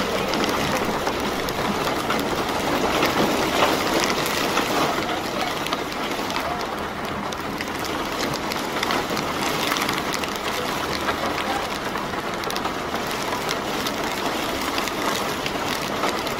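Steady rain pattering on an umbrella overhead: a constant hiss dotted with many small drop hits.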